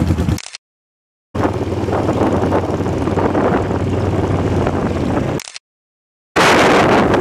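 Motorcycle engines running as a group of custom bikes pulls away and rides along a street, with wind on the microphone. The sound comes in three short stretches cut apart by two gaps of dead silence about a second long.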